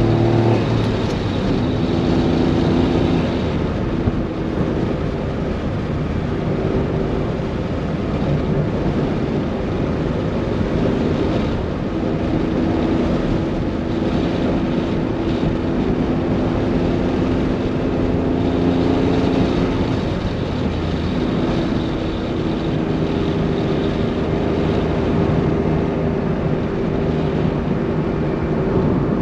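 Honda S660's turbocharged 660 cc three-cylinder engine and exhaust pulling uphill. The note holds a fairly steady pitch for stretches and changes pitch a few times.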